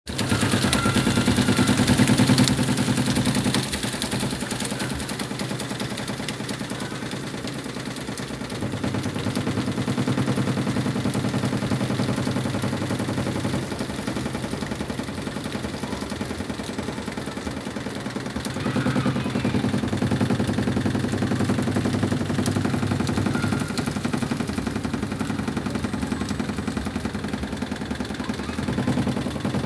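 Von Hotpoint top-loading washing machine's drum spinning at high speed with the lid open: a steady motor hum with a fast rattle, louder for the first few seconds, again about two-thirds of the way through, and near the end.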